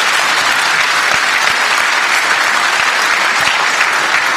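Audience applause: a large crowd clapping, steady and loud.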